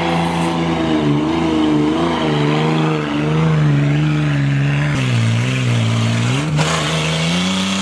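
Toyota Land Cruiser's engine revving hard under load as it climbs a steep dirt slope, the pitch wavering up and down with the revs. The note drops lower about five seconds in and rises again near the end.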